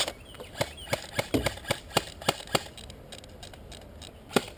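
Airsoft guns firing single shots: about a dozen sharp clicks at uneven intervals over the first few seconds, then a lull and two more shots near the end.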